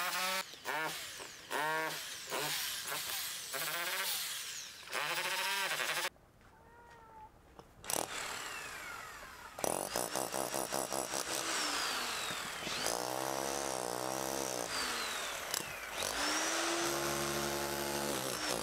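Electric demolition hammer chiselling into a stone wall in stop-start bursts, its motor pitch rising and falling. There is a short pause about six seconds in before the tool runs on.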